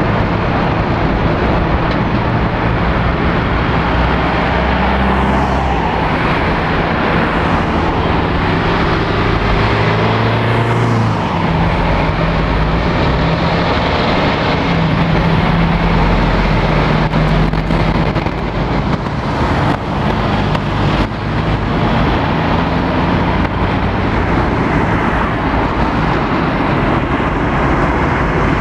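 Heavy diesel lorries and other traffic driving round a roundabout: engines pulling under load over steady tyre noise, with a MAN articulated lorry passing close by midway.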